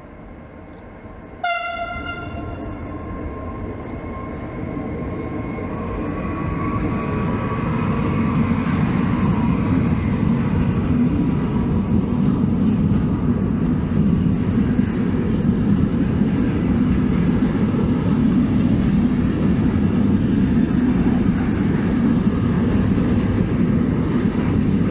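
Freight train locomotive sounds one short horn blast about a second and a half in. Then the train's rumble swells as it approaches and stays loud and steady as the container wagons run past.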